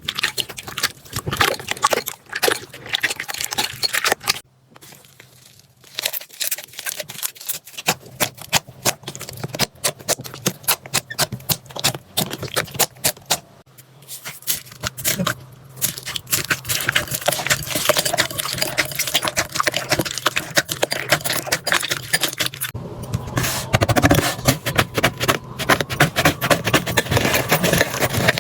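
Slime being squeezed and pressed by hand, making dense, rapid crackling and clicking pops. The sound breaks off briefly twice, about four seconds in and again near twenty-three seconds.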